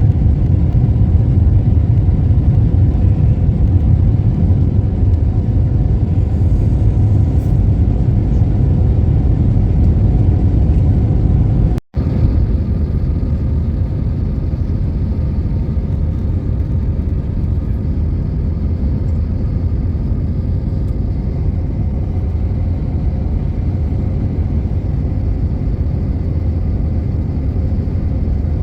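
Steady low rumble of a car on the move, road and engine noise. The sound cuts out for an instant about twelve seconds in, then carries on a little quieter.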